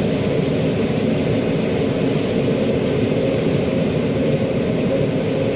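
John Deere 9500 combine running steadily under load while harvesting corn, a constant low machine drone.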